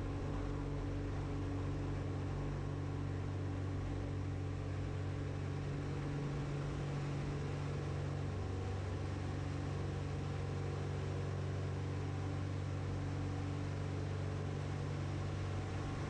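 Jabiru aircraft engine, an air-cooled six-cylinder of about 120 hp, running steadily with the propeller turning, heard as an even drone that does not change in pitch.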